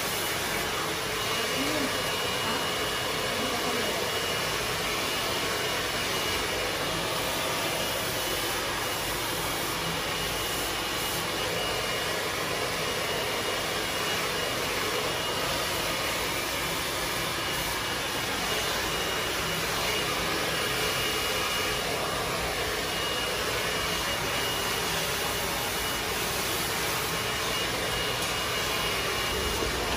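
Handheld hair dryer blowing steadily on a client's hair, a constant rush of air with a faint steady high whine.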